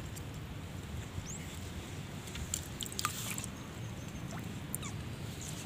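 Faint outdoor background: a low steady rumble with a few light clicks and one short rising chirp about a second in.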